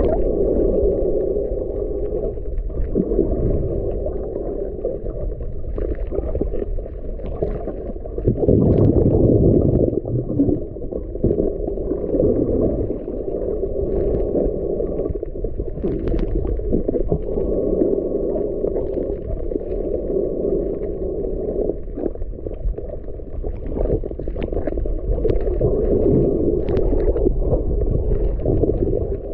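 Muffled underwater rumble and sloshing water picked up by a camera held underwater, swelling louder about nine seconds in, with faint scattered crackling clicks.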